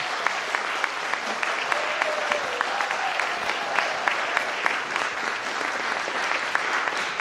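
Congregation applauding, a steady patter of many hands clapping.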